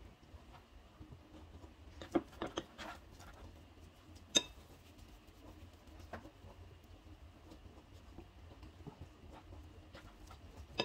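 Faint kitchen handling sounds of hands coating meatballs in flour and setting them down: a few soft taps about two seconds in and one sharper click a little after four seconds, over a low steady hum.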